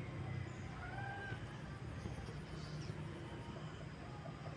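Quiet outdoor background with a steady low hum, and one faint, short animal call about a second in.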